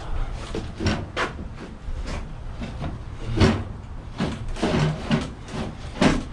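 Irregular knocks, clicks and scrapes of hands and tools working a battery loose from a concrete saw, with one louder knock about halfway through.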